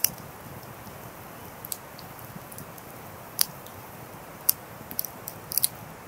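Wood fire crackling: steady low hiss of burning logs with irregular sharp pops and snaps, the loudest about three and a half and four and a half seconds in, and a quick cluster near the end.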